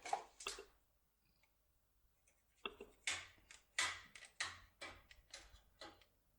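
Self-adhesive foil strip on a lock-pick tool being folded over and rubbed down with a finger: faint, short, scratchy rubbing strokes, a couple at the start and then a run of about eight from about two and a half seconds in.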